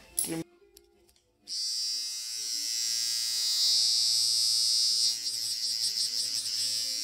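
A short knock near the start, then a moment of quiet, then an electric hair clipper switches on about a second and a half in and buzzes steadily close to the phone's microphones, wavering in level over the last couple of seconds.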